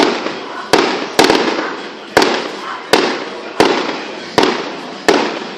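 Fireworks going off in quick succession: about nine sharp bangs, roughly one every three-quarters of a second with a few in close pairs, each followed by a fading tail.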